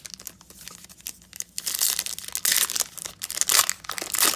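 Foil trading-card pack wrapper crinkling and tearing open: light rustling at first, then a dense, loud crackle for the last two and a half seconds or so.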